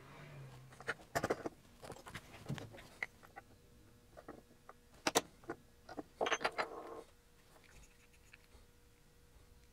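Small metallic clicks and knocks of tools handled against a metal instrument case, with several sharp taps; the sharpest, about five seconds in, fits a small copper-faced mallet striking a punch to mark hole positions on the front panel. A short burst of rattly knocks follows just after.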